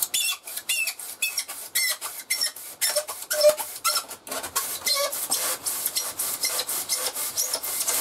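Thin-bladed insulation saw cutting through a rigid foam pipe insulation section. Steady back-and-forth rasping strokes at about four a second, with short squeaks from the foam.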